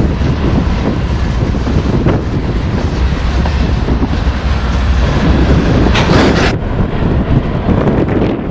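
Wind buffeting the camera microphone over the running noise of a passing train, with a strong gust about six seconds in.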